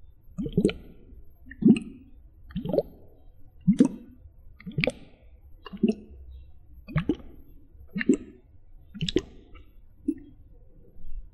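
Water plopping close to the microphone, about once a second, about ten plops in all. Each is a short plop that rises quickly in pitch, and the last is weaker.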